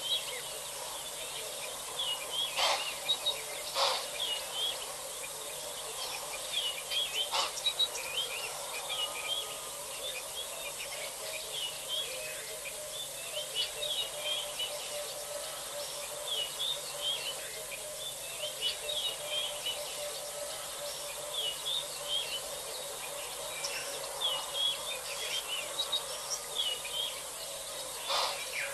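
Small birds chirping in short, high calls throughout, over a steady hiss and a faint continuous hum, with a few sharp clicks in the first eight seconds and one near the end.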